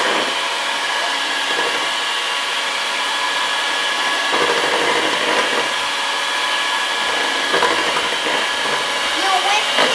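Electric hand mixer running steadily, a motor whine with its beaters whipping heavy cream, condensed milk and strawberry syrup in a plastic bowl.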